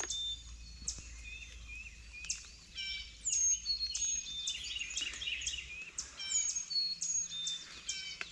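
Many songbirds calling at once in a dawn chorus: overlapping chirps, down-slurred whistles and short rapid trills.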